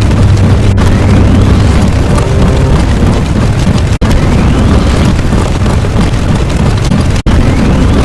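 Loud, continuous deep rumbling explosion sound effect, cut into segments about three seconds long by two brief dropouts, with a faint rising whistle at the start of each segment.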